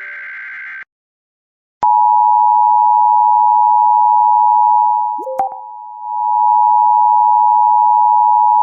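Emergency Alert System two-tone attention signal: two steady pure tones (853 and 960 Hz) sounding together, starting about two seconds in after the tail of an electronic chime dies away. About five seconds in it dips briefly, with a click and a short rising chirp, then carries on steady.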